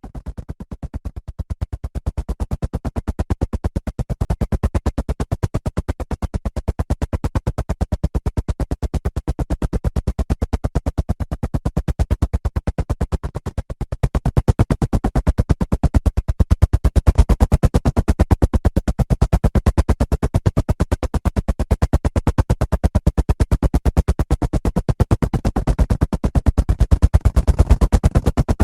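Helicopter rotor blades chopping in a rapid, even pulse. It fades in over the first couple of seconds and grows louder about halfway through.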